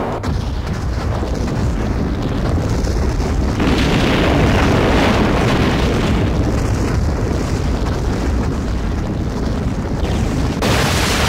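Animated explosion sound effect: a continuous heavy rumble that swells about four seconds in and turns brighter and hissier near the end.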